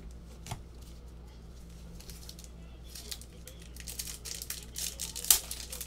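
Trading cards being handled and flipped through: a run of quick flicks and rustles, busier in the second half, with a sharp click about half a second in and a louder snap near the end.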